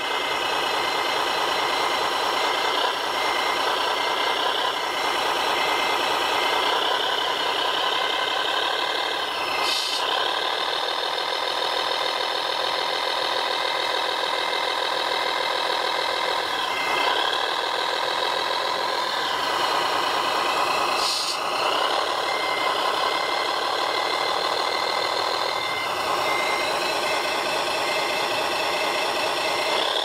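Engine sound of a remote-controlled model construction vehicle running steadily, with a repeating high beep and a few brief changes in pitch.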